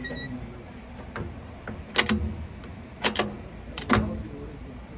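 Sharp mechanical clicks of a diesel locomotive's notched throttle and dynamic-brake controller handle being moved: one click about two seconds in, two just after three seconds, and two more near four seconds.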